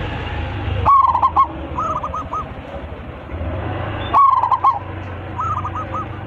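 Zebra dove cooing its song twice, each phrase a loud opening note followed by a quick run of rolling coos, and each followed by a fainter phrase of the same shape. A steady low rumble runs underneath.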